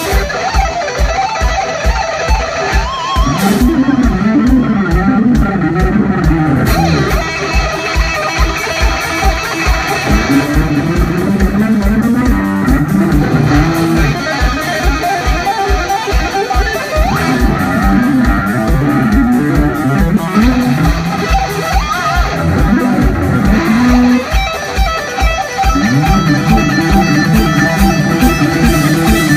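Live instrumental rock band: an electric guitar plays a lead line full of pitch bends and vibrato over bass guitar and a steady drum beat.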